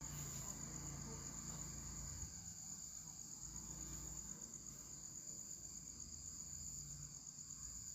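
Insects chirring: a steady, high, even trill that runs unbroken, over a faint low rumble.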